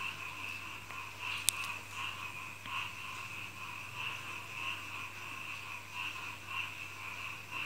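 A steady background chorus of animal calls, pulsing about twice a second, with one sharp click about a second and a half in from handling the welder's cable connectors.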